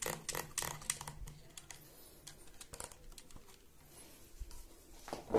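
Quick run of light clicks and rattles from an Impala Plus shotgun being handled during assembly. After about a second it thins to scattered small ticks and taps, with a louder knock near the end.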